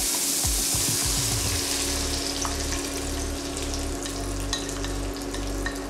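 Beaten egg mixture sizzling as it is poured into a hot pan of sautéed oysters and garlic; the hiss is strongest for the first couple of seconds, then softens as the egg spreads. A few light clicks from the bowl and spatula, over a steady low hum.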